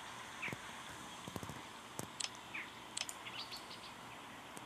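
Faint bird chirps over a light background hiss: a handful of short, quick tweets, with a few light clicks in between.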